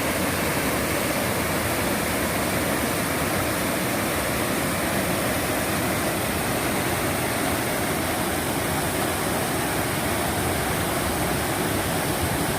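Waterfall and swift stream water rushing, a steady, even noise that does not change.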